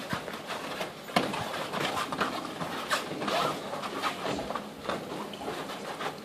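Taekwondo sparring: irregular thumps and scuffs of feet moving on foam mats and strikes landing on padded sparring gear.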